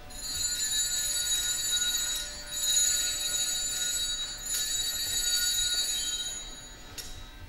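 Altar bells ringing at the elevation of the chalice after the consecration at Mass: a continuous high-pitched jingling ring with a few sharper strikes, fading out about six seconds in.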